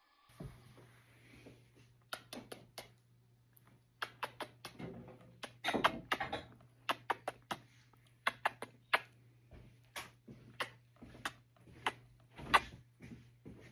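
A string of irregular sharp clicks and knocks, some in quick runs of two or three, over a steady low hum.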